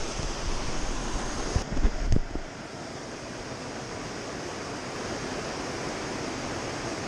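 Steady rush of a small waterfall, with a few low thumps and rumbles about two seconds in before the rush settles to an even hiss.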